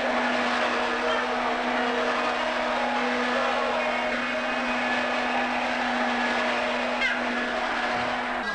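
Upright vacuum cleaner motor running with a steady hum over a rushing noise, cutting off near the end.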